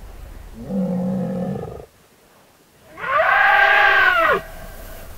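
AI-generated animal calls for a woolly mammoth: a low grunting call about a second in, then a louder trumpet-like call that rises and falls in pitch, over a low rumble.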